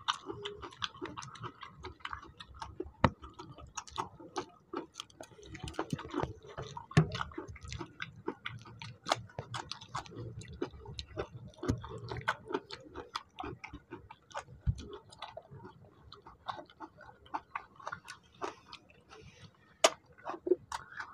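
Close-up eating sounds of people eating soaked rice by hand: irregular wet clicks, lip smacks and chewing, with fingers working the watery rice.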